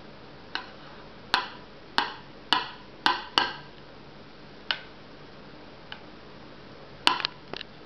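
Metal spoon clinking and knocking against a bowl as a toddler scoops food, about ten sharp clinks at irregular intervals, with a quick run of them near the end.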